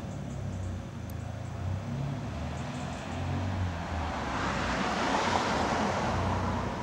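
A motor vehicle's engine running with a low, uneven rumble, joined by a rushing noise that swells up about four seconds in and fades near the end.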